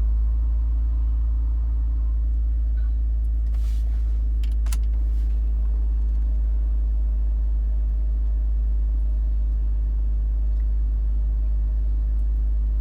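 BMW X3 engine idling: a steady low rumble, with a few light clicks about four to five seconds in.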